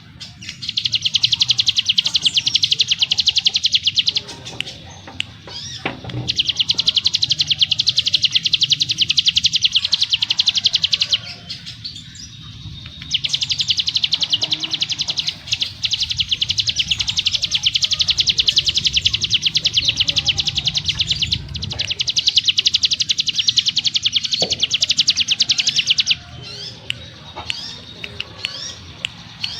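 Ciblek gunung (cigun) singing its ngebrem song: very fast, densely packed high notes in three long unbroken trills, the last and longest about thirteen seconds, with brief pauses between them.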